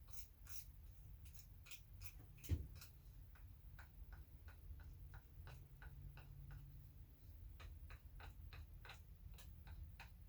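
Faint, quick ticking scrapes, about three a second, of a wire brush stroked across the tip of a wood-burning pen to clean off melted foam residue, with one louder knock about two and a half seconds in.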